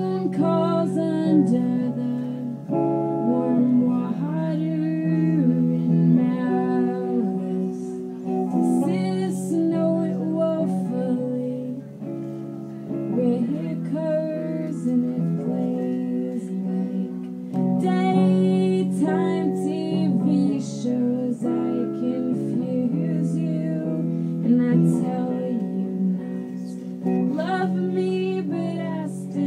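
Live indie rock performance: a guitar played in sustained chords with a woman singing in phrases over it.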